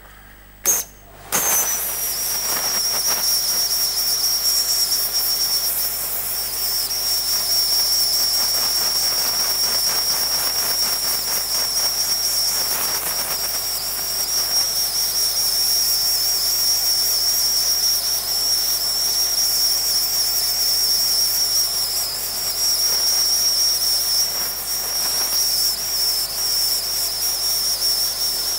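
Steam gun of a dry-cleaner's spotting table jetting steam onto stained fabric: a short puff about a second in, then a steady hiss with a high whistle.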